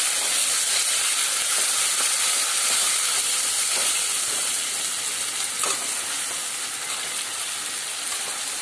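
Onions and ginger-garlic-onion paste sizzling in hot oil in a kadai as they are stirred with a metal spatula: a steady frying hiss that gets gradually quieter, with a couple of faint spatula scrapes.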